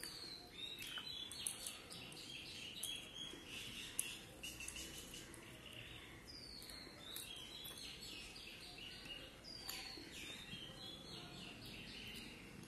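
Eating by hand from a steel plate: fingers gathering rice and gravy, with small sharp clicks and chewing sounds. A bird chirps in the background, a high call that falls in pitch and comes back several times.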